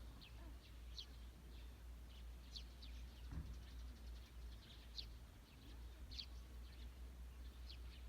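Small birds chirping faintly: short, high calls, roughly one a second, over a low steady rumble, with a soft low thump a little over three seconds in.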